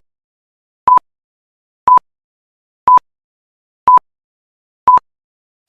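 Electronic countdown-timer beeps: about six short, identical high beeps, one each second, with silence between them.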